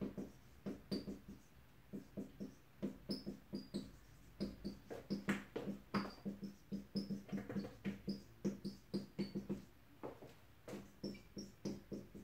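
Dry-erase marker squeaking on a whiteboard as words are written, a quick run of short squeaky strokes with small pauses between words.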